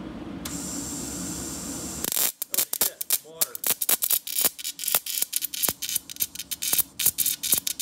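Portable EDM tap remover's brass tube electrode sparking into a tap as it starts burning a hole: rapid, irregular crackling and snapping, which begins about two seconds in. Before that, a steady hum with a hiss.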